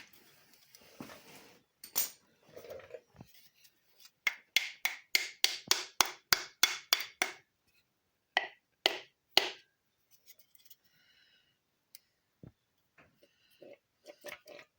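Hammer tapping a piston down through a ring compressor into the cylinder bore of an LS engine block: a run of about a dozen quick taps, roughly three a second, then three more after a short pause, with faint handling clicks afterwards.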